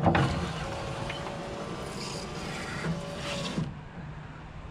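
Power window lift motor in a 1994 Chevy G20 van door running with a steady whine as the glass slides up its channel, then stopping after about three and a half seconds; it starts with a sharp knock. The newly installed motor is working.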